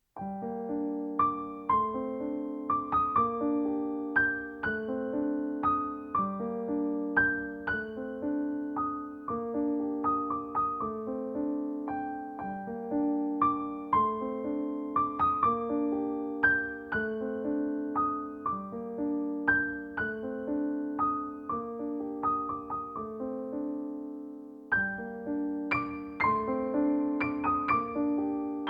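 Background piano music: a gentle piece of repeated broken chords, with a brief pause about three-quarters of the way through.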